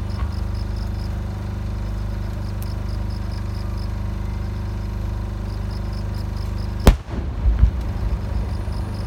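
Over a steady low background, the single loud bang of a large 10-go (shakudama) aerial firework shell bursting arrives about seven seconds in, followed by about a second of low rumbling echo. The shell is a chrysanthemum with a triple core that changes colour, sent up on a rising tail.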